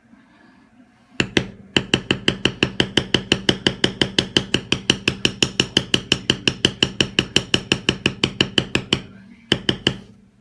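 Mallet striking a metal leather-stamping tool in quick, even blows, about six a second for some seven seconds, with a single blow just before the run and a few more near the end: stamping an impression into leather.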